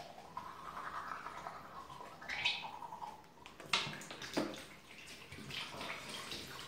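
Faint toothbrush scrubbing, then water running from the tap into a bathroom sink as the brusher bends over the basin, with a couple of sharp knocks about midway.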